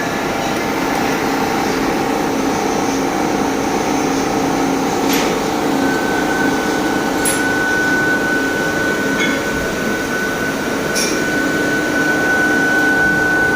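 CNC milling machine running with a steady mechanical drone. A steady high whine joins about halfway through, and there are four short sharp clicks.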